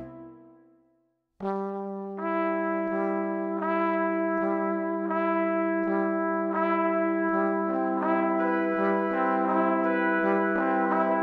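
Background music: one held chord fades away over the first second, and after a brief hush a new passage starts about a second and a half in, a steady low drone with layered, sustained notes entering at an even pace, about one and a half a second.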